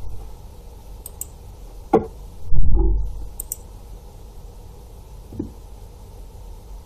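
Computer mouse clicking, a few quick double ticks, with low knocks and one louder dull thump about two and a half seconds in, over a faint steady hum.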